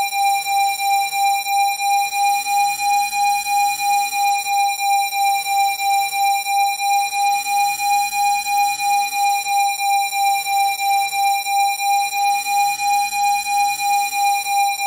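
A steady 802 Hz electronic tone with faint higher overtones, pulsing in loudness about two to three times a second.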